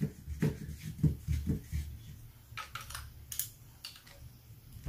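A quick run of soft knocks for about two seconds, then a few sharper clicks, as the metal parts of a Toros Copolla TR12 shotgun's barrel assembly are handled and fitted by hand.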